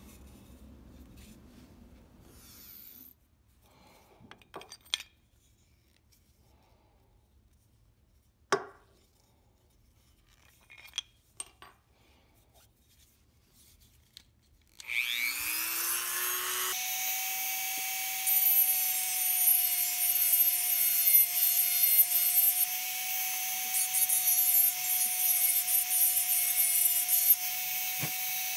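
A few faint knocks and clicks of handling, then about halfway through a Dremel MultiPro variable-speed rotary tool is switched on, its whine rising as it spins up and settling into a steady high pitch. The bit grinds into the rosewood of a Stanley plane tote, and the sound rises and falls unevenly as it cuts.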